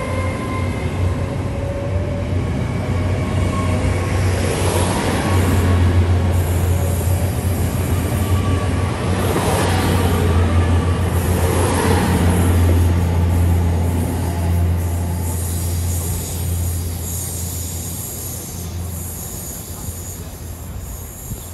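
Great Western Railway nine-coach Intercity Express Train pulling away and passing close by under diesel power. A steady low engine hum runs under the rush of wheels on rail, which swells as each bogie goes past, is loudest midway and fades as the train leaves.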